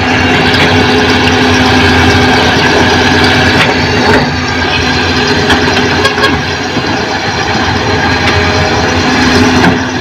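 Diesel engine of heavy construction machinery running steadily, with a few brief knocks.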